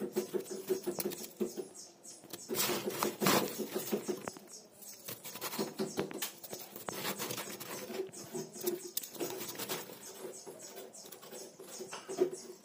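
Homemade snow crunching and crackling as fingers squeeze and crush it: a dense run of small crackles, loudest about two and a half to three and a half seconds in.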